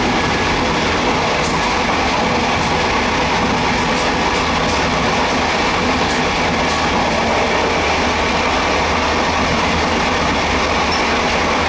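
Taiwan Railways passenger carriage running along the line, heard from its open end door: a steady rumble of wheels on the rails, with a few faint clicks.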